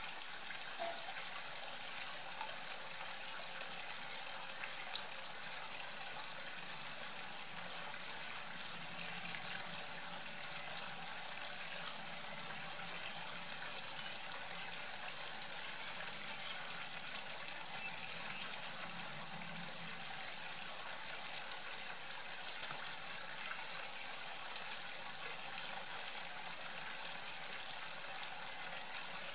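Steady, even rushing noise with a few faint clicks, the first ones within the opening five seconds.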